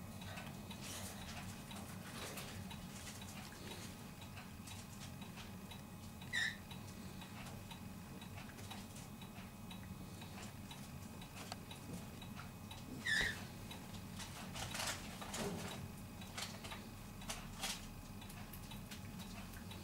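Puppy and kitten play-fighting on a blanket-covered couch: two short, high squeaks several seconds apart, with light scratching and rustling of the blanket, over a low steady hum.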